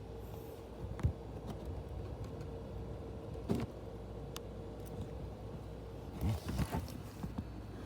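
CPU cooling fan running with a steady hum and a thin whine that stops about six seconds in. Several knocks and clicks sound over it, the loudest cluster shortly before the end.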